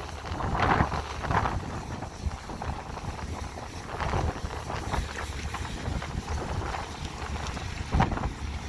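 Excavator diesel engine running with a steady low rumble, wind buffeting the microphone, and a few short louder sounds about half a second, a second and a half, four and eight seconds in.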